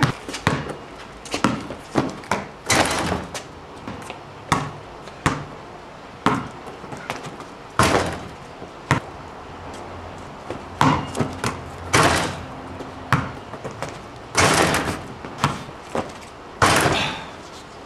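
A basketball bouncing on a concrete court in irregular thuds, with a few louder slams against the hoop's rim and backboard as it is dunked.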